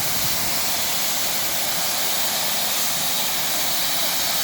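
Steam locomotive standing in a station with steam escaping in a loud, steady hiss.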